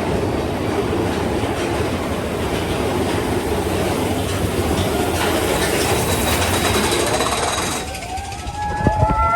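Big Thunder Mountain Railroad's mine-train roller coaster rumbling and clattering along its track at speed. About eight seconds in the rumble drops away, and several high pitched tones and a couple of low thuds are heard near the end.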